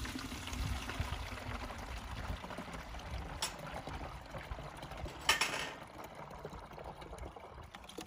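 Water draining out of a portable sink and trickling through its corrugated plastic drain hose, with a click about three and a half seconds in and a short louder burst about five seconds in.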